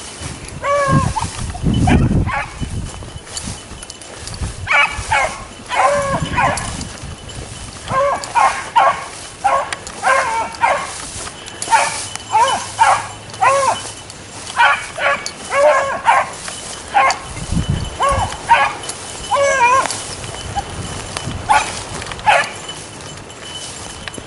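Beagles giving tongue on a rabbit's trail: a long string of short, repeated bawling barks, some bending up and down in pitch, the chase cry of hounds running a rabbit.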